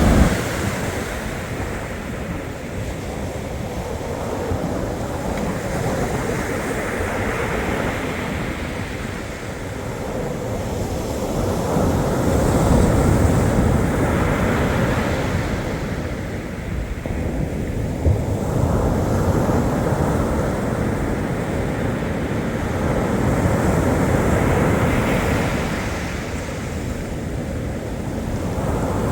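Black Sea surf washing onto the shore, the noise rising and falling as each wave comes in, with wind rumbling on the microphone.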